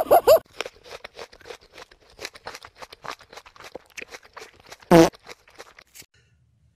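Groundhog crunching on a carrot: a run of quick, irregular crunchy chewing clicks. About five seconds in, a short, loud pitched sound stands out over the chewing.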